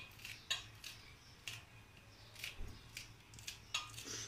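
Kitchen knife slicing a green hot pepper held in the hand over a bowl: a string of faint, irregular clicks as each slice is cut.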